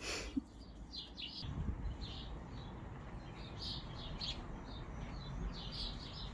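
Small birds chirping repeatedly in short high calls, over a low steady rumble.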